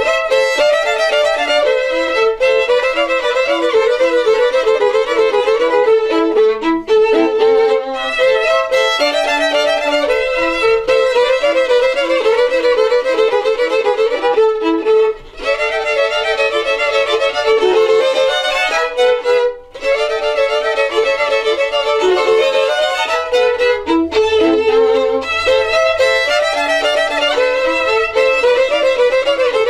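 Three violins playing an instrumental piece together, bowed, with two brief breaks between phrases about 15 and 20 seconds in.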